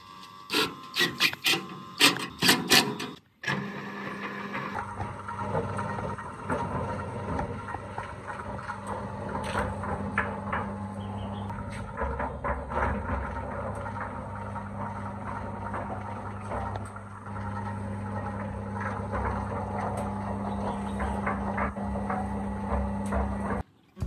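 A quick series of about eight sharp knocks, then a machine running with a steady low hum and irregular rattling clicks, cut off suddenly near the end.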